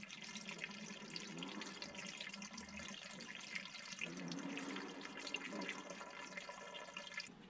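Antifreeze pouring in a steady trickling stream from a plastic gallon jug into a disconnected exhaust hose on a Volvo Penta 5.7GSi boat engine, filling the exhaust to displace the water for winterization. The sound cuts off sharply just before the end.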